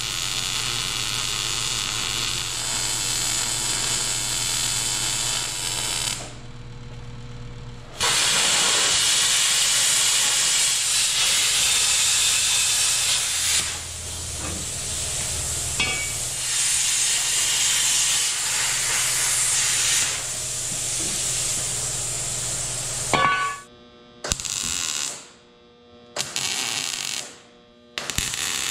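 Long runs of steady, loud hissing from shop metalworking. There is a pause about six seconds in, and several short stop-and-start bursts near the end.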